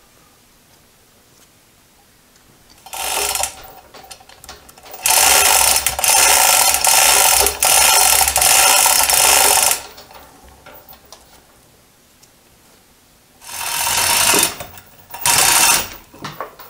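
Chain hoist being worked, its chain rattling in bursts: a short one, then a run of about five seconds with brief breaks, then two short ones near the end.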